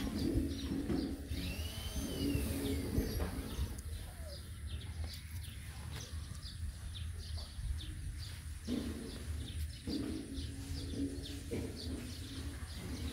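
Birds chirping in the background, short high chirps repeating throughout, with one longer call that rises and falls about a second in. A steady low rumble lies under it.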